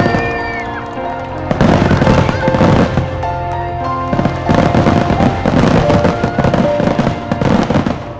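Fireworks going off in dense crackling, popping bursts, three waves of them, with music playing underneath.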